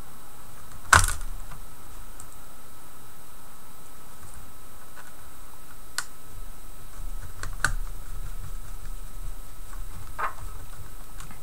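Scattered small clicks and taps of fingers and small parts on a laptop keyboard as the screws are put back in, the sharpest about a second in, over a steady background hum.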